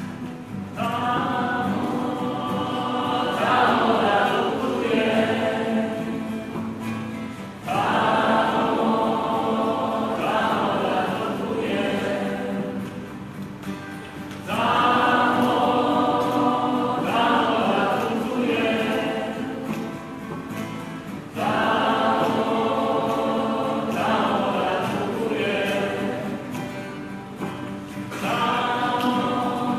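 A group of voices singing a song together in unison, in phrases that each begin abruptly about every seven seconds.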